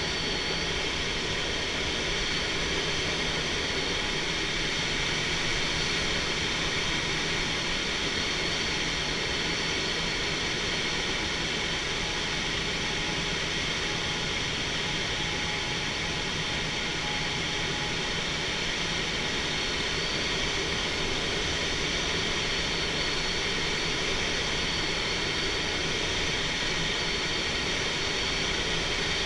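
Steady rush of air around a glider cockpit in flight, unchanging throughout, with a few faint steady tones in it.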